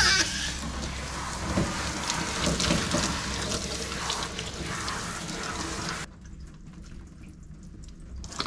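Water spraying from a handheld shower nozzle onto a dog's coat, a steady hiss that cuts off suddenly about six seconds in.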